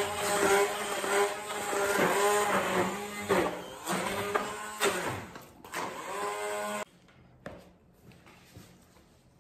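Bosch immersion (hand) blender running in a thick mixture of cooked buckwheat and egg, its motor pitch dipping and recovering again and again under the load. It is switched off suddenly about seven seconds in.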